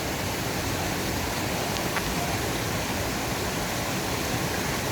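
Mountain valley stream rushing over rocks, a steady even hiss of water.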